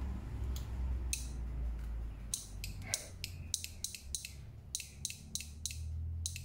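Small speaker disc wired to an RC receiver's channel 4 giving a string of sharp clicks, irregular and a few a second, as the transmitter control is worked. It is not a proper buzzer, so it clicks instead of sounding a long tone.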